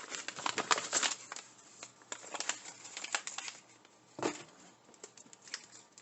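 Plastic toy packaging being handled: crinkling with light clicks and taps, busiest in the first second, and a single louder tap a little past four seconds in.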